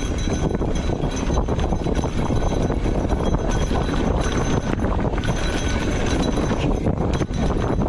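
Mountain bike riding fast over a rough dirt trail: wind rumbling on the microphone, tyre noise and frequent small knocks and rattles from the bike.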